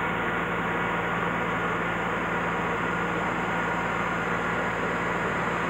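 Steady running-machinery noise, an even hiss with a low electrical hum beneath it and no change.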